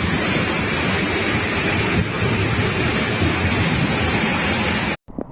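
Heavy rainstorm: a dense, steady downpour with a low rumble under it. It cuts off suddenly near the end.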